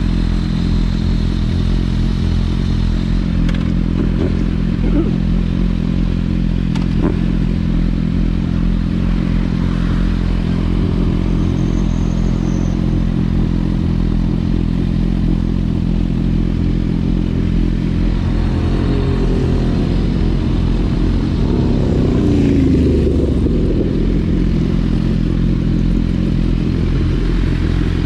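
Suzuki GSX-R1000R inline-four engine idling steadily while the bike stands still. About two-thirds of the way through, another engine note briefly rises and falls in pitch over the idle.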